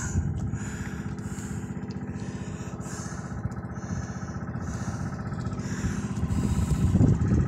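Small engine of a wooden outrigger fishing boat running steadily, growing a little louder near the end.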